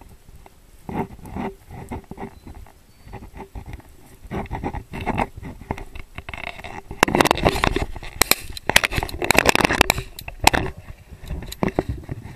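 Tall dry grass rustling and crackling as bodies push through it close to the microphone, in dense bursts that are loudest from about seven to eleven seconds in.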